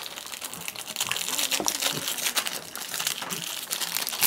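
Plastic ice cream wrappers crinkling and crackling as they are handled and pulled open, a quick run of fine crackles throughout.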